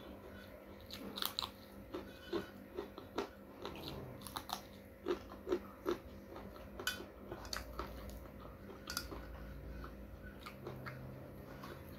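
Close-up mouth sounds of a person chewing and biting food, with a string of irregular crisp crunches.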